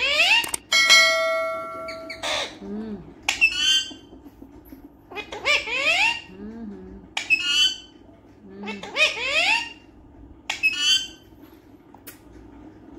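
Alexandrine parakeet giving short, rising squawks and chattering calls, one every second or so. Just after the start a bell-like chime rings steadily for about a second and a half.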